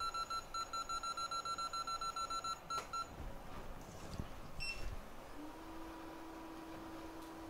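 Electronic beeper sounding a rapid, even run of high-pitched beeps, about seven a second, that stops about three seconds in. A single short, higher beep follows, and a steady low hum starts shortly after it.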